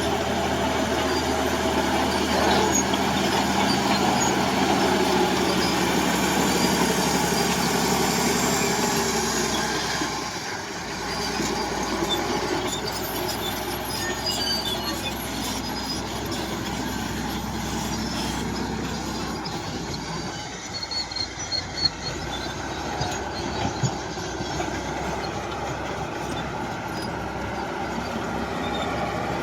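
Tracked earthmoving machine working: diesel engine running under load, easing off about a third of the way in, with squealing and clanking from the steel tracks and a few sharp knocks later on.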